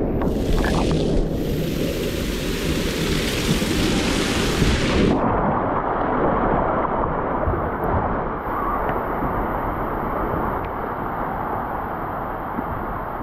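Rushing, splashing water at a water slide with a low rumble. A loud spray-like hiss cuts off suddenly about five seconds in, leaving the steady rumbling wash.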